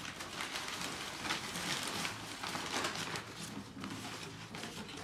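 Crumpled packing paper rustling and crinkling as it is pulled out of a cardboard box, a continuous run of irregular crackles.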